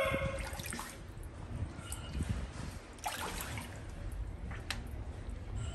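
Faint water trickling and dripping in a small pond, over a steady low rumble, with a few small clicks.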